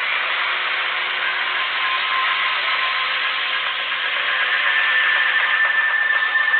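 Steady mechanical whirring noise, with a faint thin high tone coming in about four and a half seconds in.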